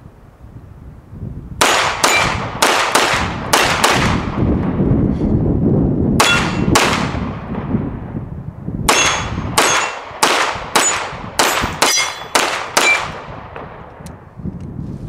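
CZ SP-01 pistol fired in rapid strings: about six shots, a pair, then about eight more in quick succession. Each shot has a metallic, ringing clang.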